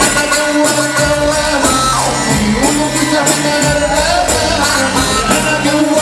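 Loud dance music from a song mix played at an Egyptian wedding: a gliding melody line over a steady bass beat, with singing.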